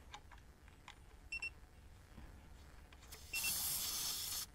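Haloview BT7 tire pressure monitor's alarm beeping, a short double beep about every two seconds: its low-pressure fast-leak warning. Near the end there is a hiss of air for about a second from the trailer tire's metal valve stem as the TPMS sensor is screwed back onto it.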